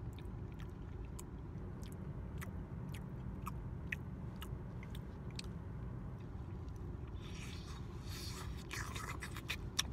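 A person chewing a mouthful of soft bean and beef burrito, with small wet mouth clicks, over a steady low rumble inside a car.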